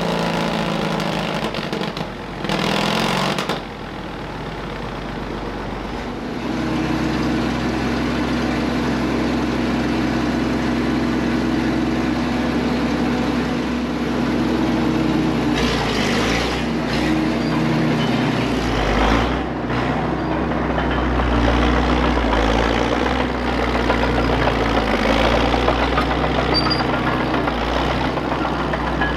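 1954 Caterpillar No. 6 crawler shovel's diesel engine running steadily while the machine is driven. A brief louder rush of noise comes about two to three seconds in.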